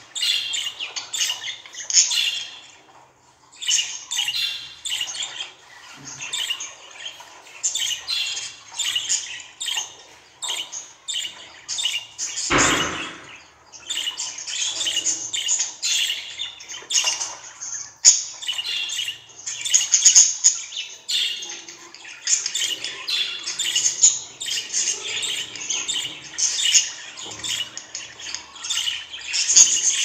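Female budgerigar chattering without pause: rapid high chirps mixed with harsher squawks, many short calls a second, with a brief lull about three seconds in.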